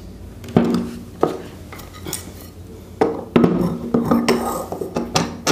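Metal end cover of an 18-inch cooler motor knocking and clinking against the stator housing and rotor shaft as it is fitted on. It gives a string of sharp knocks with a short ring, more of them in the second half.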